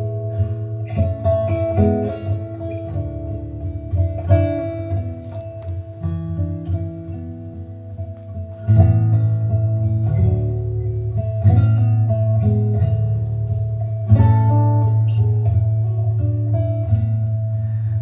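Guitar intro to a song, picked notes over a steady bass, played back through PSB Image B6 bookshelf speakers driven by a single-ended EL34 valve amplifier. It gets louder about halfway through.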